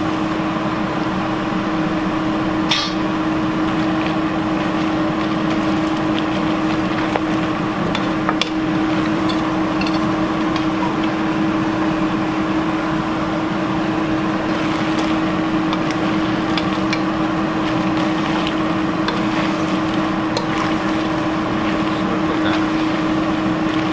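Crawfish stir-frying in a pan over a steady mechanical hum, with scattered clicks of the utensil against the pan as they are tossed.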